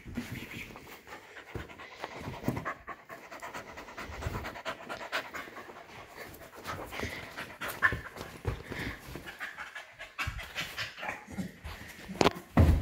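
Double merle Koolie puppy panting hard during excited play, with scuffling against the couch cushions and a sharp thump near the end.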